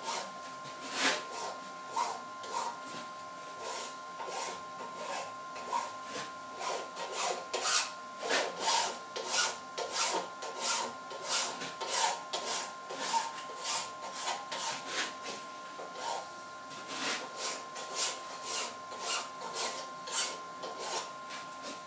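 Hand file deburring the edges of a metal block held in a mill vise: repeated rasping strokes, sparse at first and then coming about two a second.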